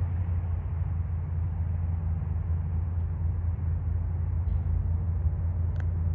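Steady low rumble of highway traffic and vehicle engines, with an even hiss of road noise over it.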